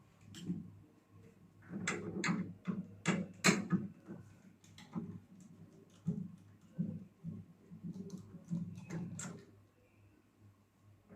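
Irregular clicks and knocks of hand tools and metal parts being handled while a Sharp R-219T microwave oven's cover is taken off, loudest about two to four seconds in.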